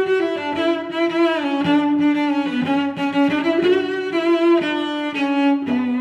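Background music: a melody of sustained, smoothly changing notes on bowed string instruments, with a cello-like low line.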